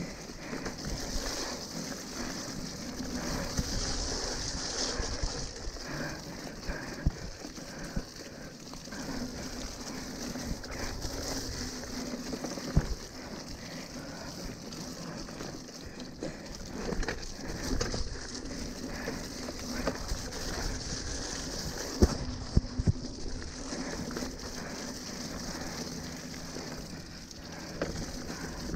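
Mountain bike riding over a wet, muddy dirt trail: a steady wet hiss of tyres and spray, with sharp knocks and rattles from the bike jolting over bumps, loudest twice in the middle.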